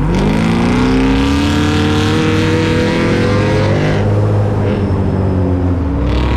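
Ford EcoBoost trophy truck engine accelerating hard, its revs climbing for about four seconds, dropping sharply, then climbing again near the end.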